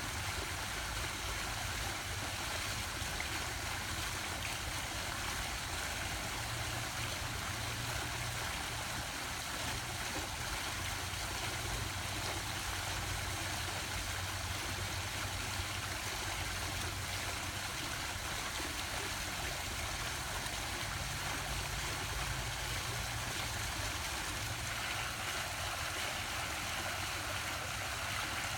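Water fountain splashing steadily, an even rush of falling water without a break.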